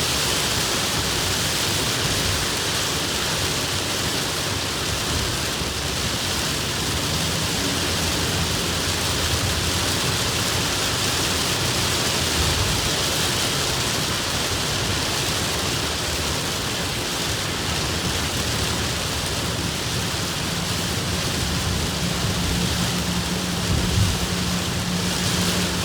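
Heavy rain pouring down steadily in a hard downpour.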